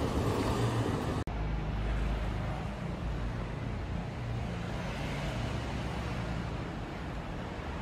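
Road traffic: a car drives past close by, then the sound cuts off abruptly about a second in and gives way to a steadier low rumble of traffic with a hiss.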